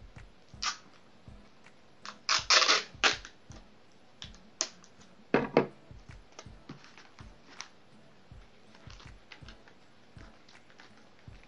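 Sticky tape being pulled off its roll in a few short noisy rips, the loudest about two to three seconds in. Then comes a knock, like the tape roll being set down on a wooden table, followed by soft crinkling of wrapping paper being handled.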